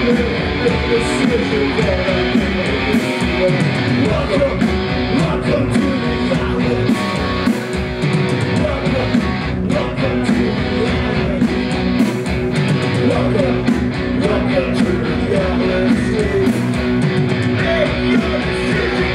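Live punk rock band playing loud and continuously: distorted electric guitars strummed over drums with steady cymbal and snare hits.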